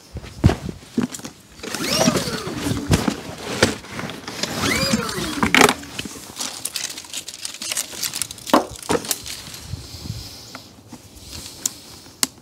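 Recoil starter of a Firman W2000i inverter generator being pulled twice, each pull a whir that rises and then falls in pitch as the engine cranks without catching, with clicks and knocks of handling in between. The hard start is one the owner puts down to fuel still having to flow into the new engine.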